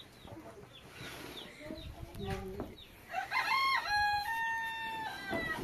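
A rooster crowing once, a long call that starts about three seconds in, holds steady and drops away near the end, with shorter fowl calls and chirps before it.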